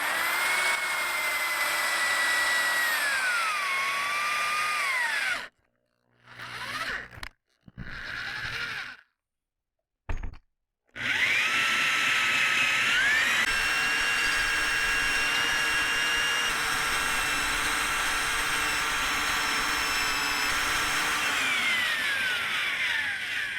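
Power drill boring a 2 1/8-inch hole through a wooden door with a hole saw: a motor whine that drops in pitch as the saw bites, stops about five seconds in, gives a few short bursts, then runs steadily for about twelve seconds and winds down near the end.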